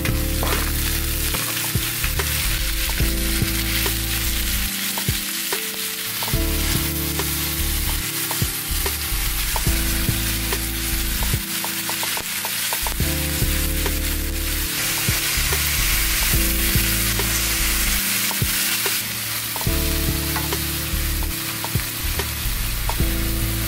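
Sliced pork throat cartilage frying with garlic in a hot iron skillet, a steady loud sizzle, stirred now and then with light clicks against the pan.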